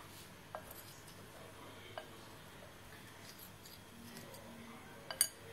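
Faint clicks and taps of corn kernels and fingers against a glass mixing bowl as the corn is tossed with cornflour by hand. A few scattered ticks, with the sharpest click a little after five seconds in.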